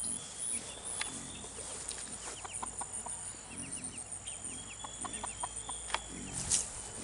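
Mother hen giving low clucks about once a second, while her chicks peep in short quick runs.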